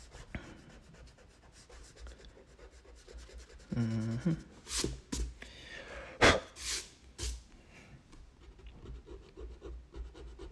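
Graphite pencil rubbing and scratching on sulphite drawing paper, with a run of louder brushing strokes about five to seven seconds in. A brief hummed voice sounds near four seconds.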